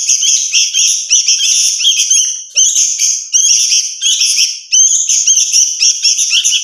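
Two hand-reared sooty-headed bulbul chicks begging to be fed, a loud, near-continuous run of shrill, high chirps from both birds.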